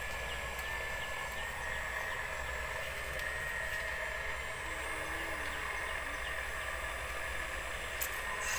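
Radio-controlled truck's electric motor and gears whining steadily at a high pitch that drifts slightly.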